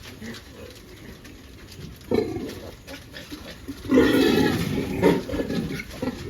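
A sow and her newborn piglets in a farrowing pen, moving and making pig noises, with a sudden louder burst about two seconds in and a longer, louder one around four seconds in.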